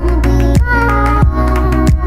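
Background music with a steady beat, about three beats every two seconds, under a wavering melodic line.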